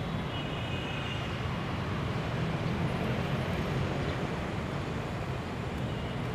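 Steady low rumble of city background noise, like distant traffic and building machinery, with no distinct events; a faint thin high tone sounds briefly within the first second or so.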